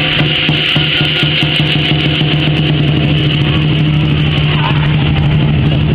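A loud, steady engine drone with a constant low hum that holds one pitch throughout.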